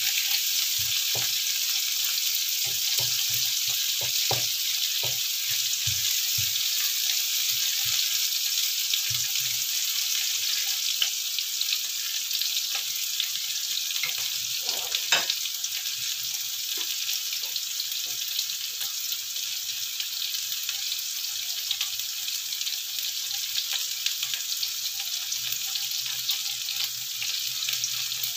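Sliced bitter melon frying in oil in a wok, a steady sizzle. A wooden spatula knocks and scrapes against the pan for roughly the first ten seconds, then the stirring stops and the sizzle carries on alone.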